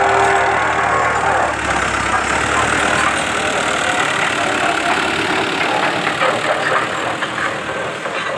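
Fiat 640 tractor's diesel engine running as it pulls a land leveller through loose soil.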